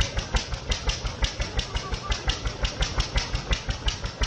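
A small engine running steadily with an even thumping, about four to five beats a second.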